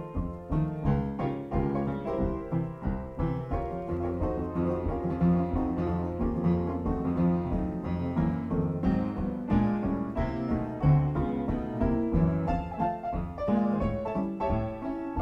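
Background piano music with many quick notes.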